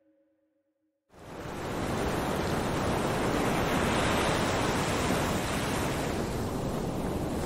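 Steady rushing of ocean waves and wind, fading in quickly about a second in after a brief hush.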